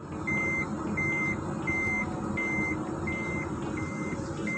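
A vehicle warning beeper sounds a steady run of short electronic beeps, seven in a row about 0.7 s apart, each the same pitch. Underneath is the steady rumble of the Toyota Land Cruiser's engine and drivetrain running.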